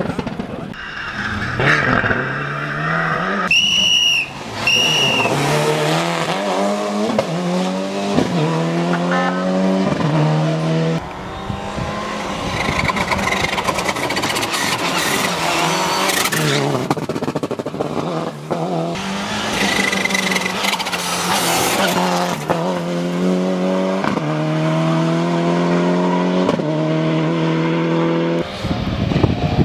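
Lancia Delta HF Integrale's turbocharged four-cylinder engine revving hard through the gears: its pitch climbs again and again, broken by gear shifts, in two long pulls with a lift between them. A few short high squeals come over it.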